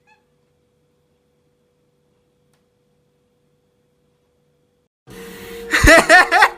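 Near silence with only a faint steady tone for about five seconds, then noise cuts in and a loud voice starts near the end.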